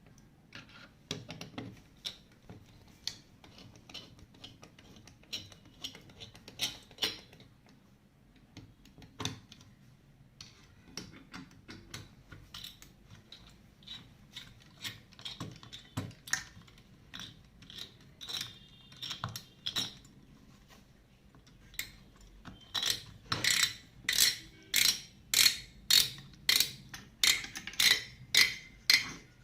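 Small mechanical clicks and taps of hand assembly work on a PC, then a run of sharp, regular ratcheting clicks about twice a second in the last seven seconds, as of a ratchet screwdriver fastening screws.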